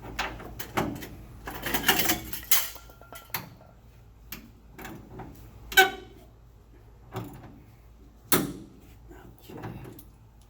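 Hand tools working on metal: scattered clicks and knocks from a socket wrench tightening a shock absorber's mounting bolt, with one ringing metallic clank about six seconds in and another sharp knock a couple of seconds later.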